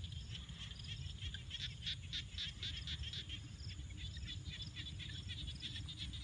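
Outdoor dusk chorus of many birds chirping: a dense, continuous run of short high calls over a steady low rumble.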